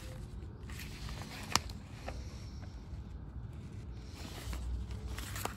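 Thin carbon-copy invoice sheets rustling and crinkling as they are handled and leafed through, with one sharp click about a second and a half in, over a low rumble.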